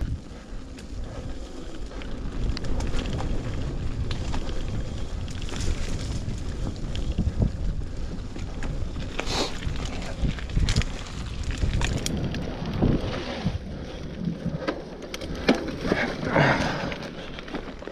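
Mountain bike rolling over a bumpy dirt trail: wind buffeting the microphone over the low rumble of the tyres, with scattered knocks and rattles as the bike jolts, busier near the end.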